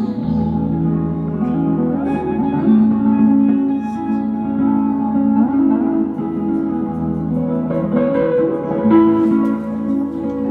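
Background music led by plucked guitar, steady throughout.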